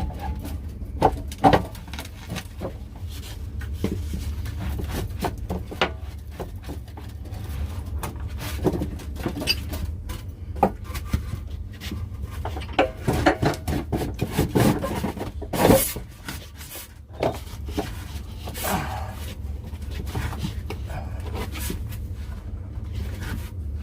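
Irregular knocks, clunks and scrapes of hands and tools working a heavy object in a cramped space, with one sharp knock about two-thirds through, over a steady low hum.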